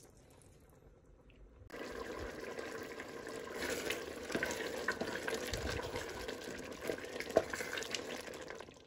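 Pork stew bubbling in a pot as a spoon stirs through it, starting about two seconds in, with a sharp knock of the spoon against the pot near the end.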